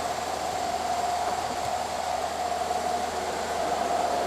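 Steady machinery whir and hiss with one constant mid-pitched tone running through it.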